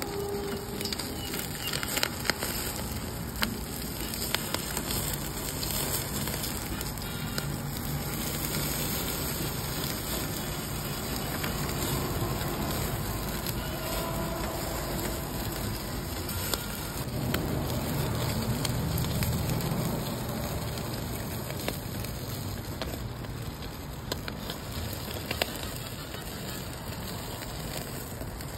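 Salmon belly sizzling and crackling on a tabletop grill as its dripping fat flares up in the flames, with sharp pops now and then.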